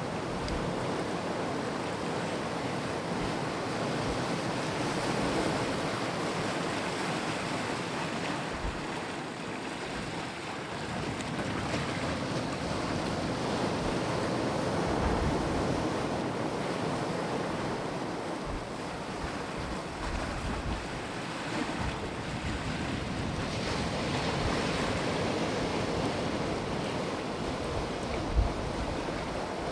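Sea waves washing onto the shore, a steady surf that swells and eases every few seconds, with wind buffeting the microphone. A single brief thump comes near the end.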